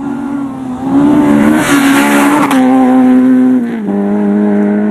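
Rally car engine held at high revs as the car comes past at speed on a gravel stage, with a rush of tyre and gravel noise over it in the middle. About four seconds in, the engine note drops abruptly to a lower steady pitch.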